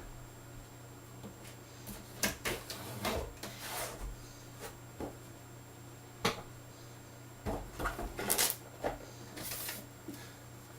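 Unboxing handling noise: cardboard box and packing being opened and moved, with rustles, scrapes and sharp knocks in two bouts and a single sharp click between them. A steady low hum runs underneath.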